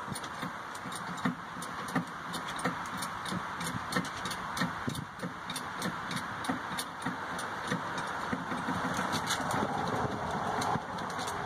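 A jack being worked to raise a car door resting on it: irregular clicks and light knocks over a steady background hiss.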